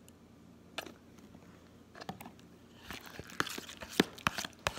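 Metal spoon stirring a sticky soap-and-salt slime mixture in a plastic bowl. There is a single tap under a second in, then from about three seconds a quick run of crackling clicks as the spoon scrapes and knocks against the plastic.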